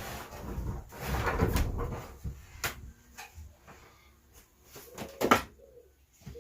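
Wood being handled in the workshop: about two seconds of rubbing and scraping, then scattered knocks and clunks of wooden parts, the loudest about five seconds in, like cabinet doors or panels being shut.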